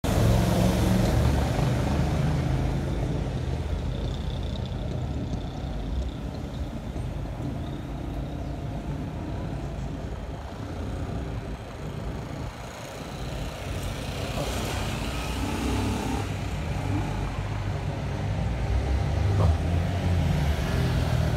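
Street traffic: motor vehicles passing with a steady low engine rumble that eases off around the middle and swells again over the last few seconds.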